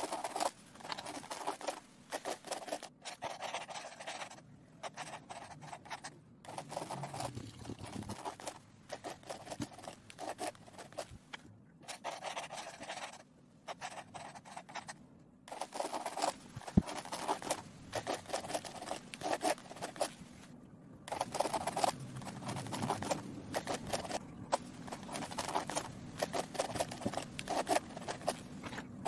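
Pencil lead scratching across sketchbook paper in rapid, dense strokes while a drawing is sketched, broken by a few short silences. There is one sharp tick about two-thirds of the way through.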